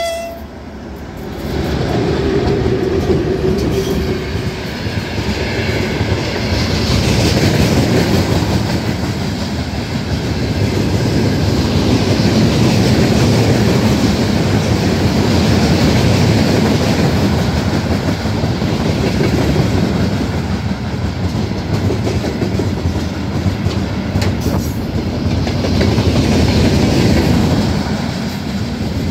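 Freight train hauled by a VL10u electric locomotive passing close by: a long, steady rumble and clatter of wagon wheels over the rail joints. The locomotive's horn cuts off at the very start.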